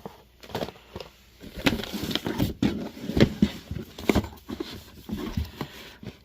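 MRE ration pouches being handled and shuffled: irregular rustling of stiff plastic packaging with scattered light knocks.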